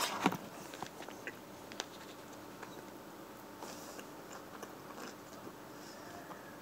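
Close-up chewing of a romaine lettuce salad: soft crunches and wet mouth clicks. A couple of sharper clicks come right at the start.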